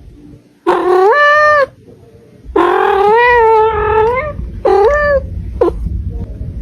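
A cat meowing four times. The second meow is long and drawn out, and the last is very brief.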